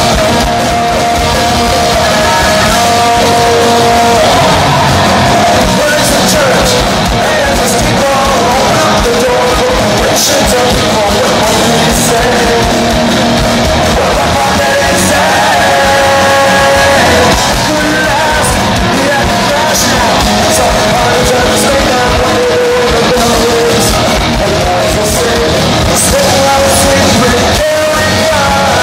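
Punk rock band playing live and loud in a concert hall: distorted electric guitars, drums with crashing cymbals, and a singer's vocals over the band.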